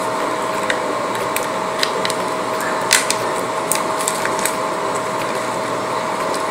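Scattered light clicks and crinkles of a plastic-film-wrapped air mouse remote being handled as a charging cable plug is fitted to its port, over a steady background hum with a constant faint tone.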